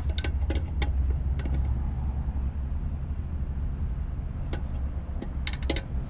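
Scattered clicks and clinks of parts being handled while fiddling in a car's engine bay, several in the first second and a few more near the end, over a steady low rumble.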